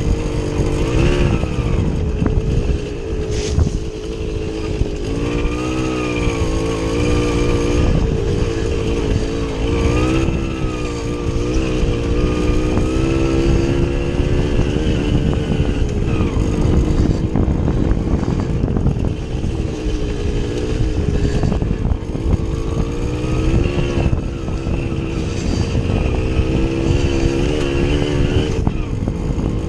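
Small two-stroke motorcycle engine running under load, its pitch rising and falling again and again as the rider opens and closes the throttle, with a dense low rumble underneath.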